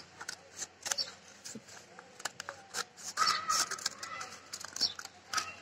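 Scissors snipping through a rolled paper cone in short, crisp cuts, with irregular clicks of the blades. A brief higher-pitched chirping sound comes about three seconds in and is the loudest part.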